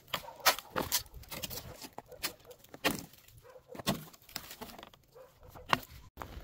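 Footsteps crunching over dry twigs and stony ground, with irregular sharp cracks and scrapes from a dry dead branch being carried for firewood.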